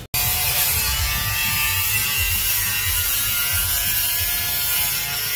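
Handheld angle grinder with a cutting disc running steadily as it cuts through thin sheet steel: a continuous whine with a hiss of grinding.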